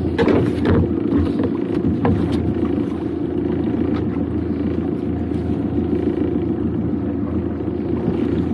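Small fishing boat's engine running steadily with a low rumble, with a few sharp knocks in the first couple of seconds.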